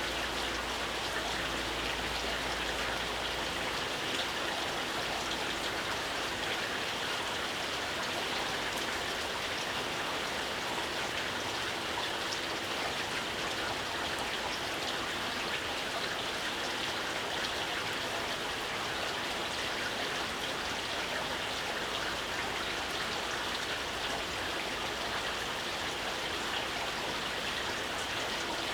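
Steady gentle rain falling, with a dense patter of individual drops.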